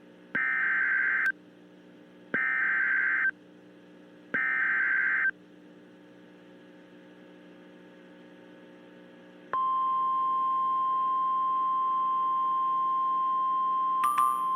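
Emergency Alert System header: three one-second bursts of warbling digital data tones, a second apart, over a faint hum. Then, about nine and a half seconds in, the steady single-pitch warning alarm tone of NOAA Weather Radio begins, the signal that a National Weather Service warning is about to be read.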